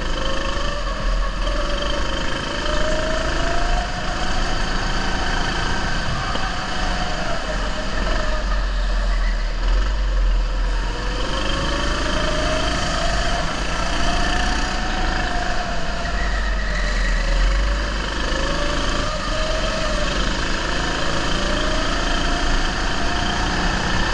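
Go-kart driven hard around an indoor track, heard from on board. The motor's pitch rises and falls every few seconds as it speeds up on the straights and slows for the corners, over a steady low rumble of vibration.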